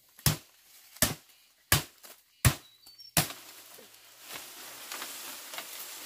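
Five sharp strikes of a hand tool, evenly spaced about 0.7 seconds apart, followed by a faint steady hiss.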